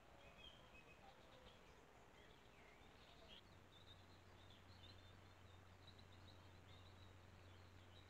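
Faint bird chirps and short calls over the steady hiss of a trail camera's microphone, with a low steady hum coming in about three and a half seconds in.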